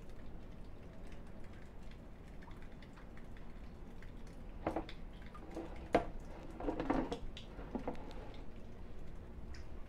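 Plastic rain barrel lid being handled and closed: a few short clatters and one sharp knock about six seconds in.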